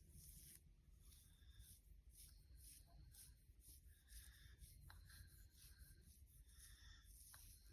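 Fingernails scratching through hair on a scalp with dandruff, in quick short strokes a few times a second.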